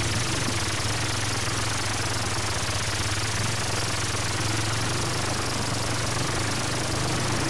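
Honda Twister 250 single-cylinder motorcycle engine running steadily at low speed, a fast, even pulsing beat.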